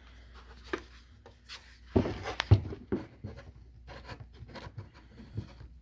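Flathead screwdriver scraping and prying at a glued-in car door speaker to break the adhesive, with scratching throughout and a few sharp knocks about two seconds in.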